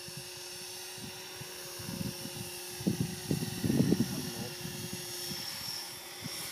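Blade 450 electric RC helicopter in flight at a distance, its motor and rotors giving a steady whine. Irregular low buffeting rumbles come and go, loudest about three to four seconds in.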